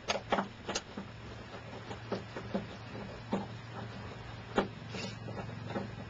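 Scattered small clicks and taps of hand tools and wiring being handled during electrical work, about nine at uneven intervals, the sharpest a little over four seconds in, over a steady low hum.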